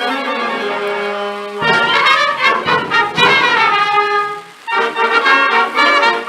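Live brass music, trumpets and trombones playing short phrases with sliding runs, after a held note that cuts off about a second and a half in.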